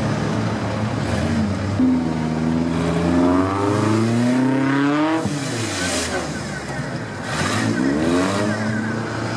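An off-road side-by-side buggy's engine revving under load as it crawls over obstacles. The pitch climbs for about three seconds, drops sharply about five seconds in, then rises and falls again near the end.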